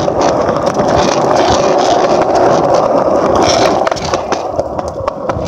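Skateboard wheels rolling over pavement: a steady loud rolling noise with many small clicks through it, easing off about four seconds in.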